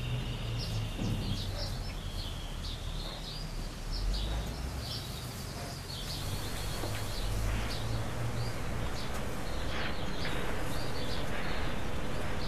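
Small birds chirping, with many short high calls and a brief trill, over a low steady background rumble.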